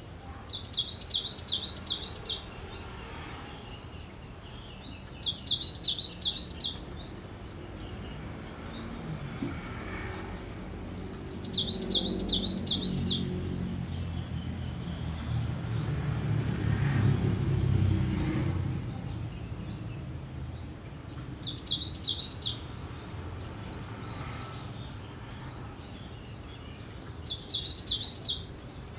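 Cinereous tit (gelatik batu) singing: five bursts of quick, high, repeated notes, each one to two seconds long and several seconds apart. A low rumble swells and fades in the middle.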